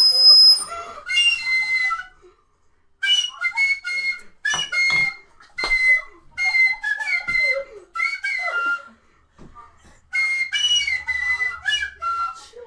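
A small handheld wind instrument blown at the mouth, playing a shrill, whistle-like melody in short phrases of several notes each. It opens with a piercing high squeak, and there are brief pauses about two and nine seconds in.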